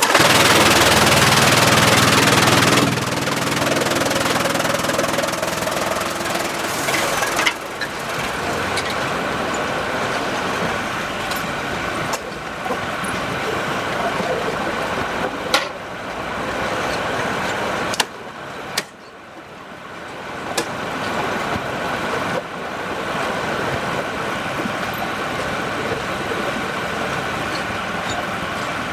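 Sawmill machinery running with a steady engine-like drone. It is louder and harsher for the first three seconds, with a few sharp knocks scattered through it and a brief drop-off about two-thirds of the way in.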